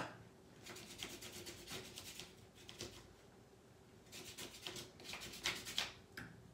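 Paintbrush scrubbing watercolor over crumpled, oil-pastel-coated paper: faint, quick scratchy strokes in two spells, with a short lull around the middle.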